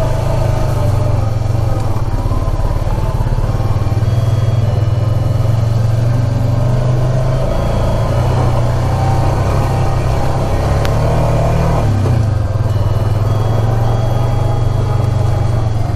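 ATV engine running steadily as the quad rides along a trail. Its pitch rises briefly and drops off about three-quarters of the way through.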